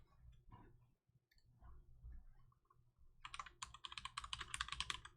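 Fast typing on a computer keyboard, a quick run of key clicks lasting about two seconds near the end, after a few scattered faint clicks.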